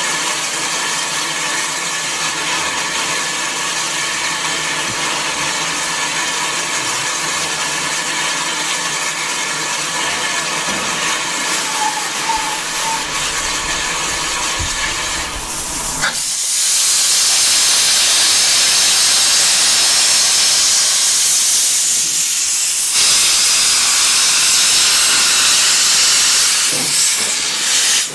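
Saddle tank steam locomotive Victor hissing steadily as it stands. About 16 seconds in, a much louder, higher hiss of escaping steam starts, from its cylinder drain cocks, and carries on.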